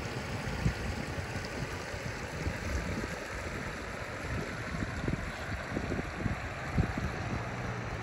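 Shallow river water flowing over a gravel and stone bed, a steady babbling rush, with irregular low rumbles of wind on the microphone.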